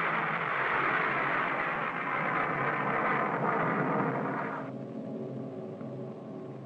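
Mercury spacecraft's escape rocket firing: a loud, steady rush of noise that starts suddenly. Its higher part cuts off about four and a half seconds in, leaving a fainter low rumble.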